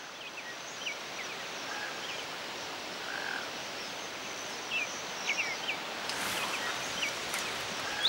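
Outdoor nature ambience: a steady hiss with scattered short, high chirps from small animals, bunched together about five seconds in, over a faint thin high tone.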